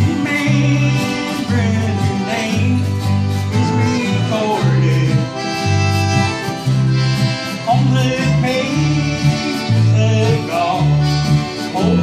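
Small acoustic country band playing live: strummed acoustic guitars and an accordion over a steady bass line that steps between two notes, with a lead melody on top that slides between notes now and then.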